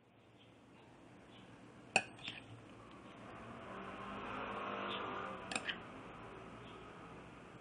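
Two sharp clinks of cutlery against a plate, about two seconds in and again halfway through, over a motor vehicle passing that swells and fades.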